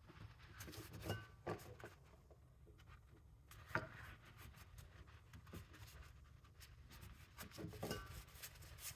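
Faint rubbing and a few small clicks from a shop towel wiping out the bore of a motorcycle brake master cylinder.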